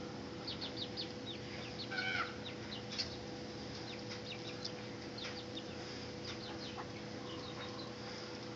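Backyard poultry calling: many short, scattered high chirps and clucks from a mixed flock of chickens, guinea fowl and turkeys, with one louder call about two seconds in. A steady low hum runs underneath.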